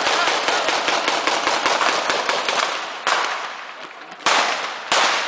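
A long volley of rapid gunfire, shots coming in quick succession for about three seconds, then a fresh burst and two more loud shots near the end.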